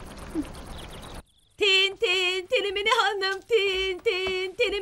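A woman singing in a high, wavering voice, in short phrases, starting about a second and a half in after a brief cut. Before that, only a steady background hiss.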